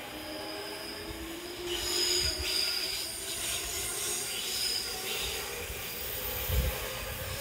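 A JR East 205 series electric train running past at close range. Its wheels give off high-pitched squealing tones from about two seconds in, over a rumble of the cars with irregular low thuds. The loudest thud comes near the end.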